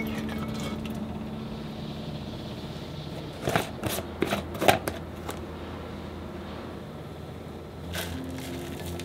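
Plastic screw-top lid being twisted off a jar of red pepper powder: a quick run of clicks and scrapes about three to five seconds in, followed by a single light knock near the end.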